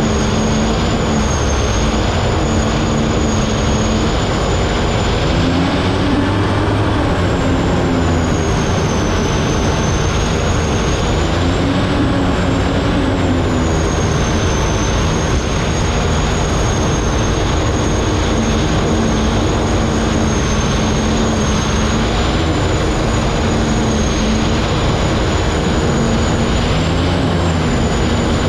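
Unlimited hydroplane's turbine engine running at racing speed, heard onboard: a high turbine whine that rises and dips with the throttle over a dense, loud rushing noise.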